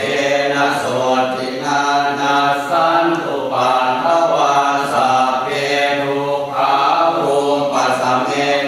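Thai Buddhist prayer chanting: low voices chanting steadily in unison, running from syllable to syllable without a break.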